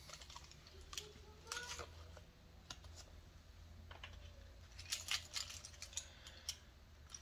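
Faint, irregular clicking and tapping of a computer keyboard and mouse, with small clusters of clicks about a second and a half in and again around five seconds.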